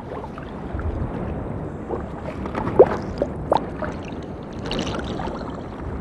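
Underwater ambience: a steady low rumble of moving water, with a few short bubbling blips near the middle.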